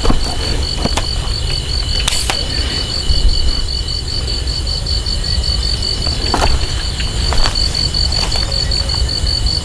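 Crickets chirping steadily in a rapid pulsing trill, about four pulses a second, over a low rumble with a few scattered clicks and rustles.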